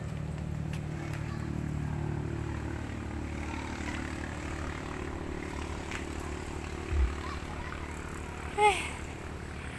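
A motor engine drones in the background, swelling over the first few seconds and then easing off. There is a low thump about seven seconds in, and a short pitched voice-like call near the end.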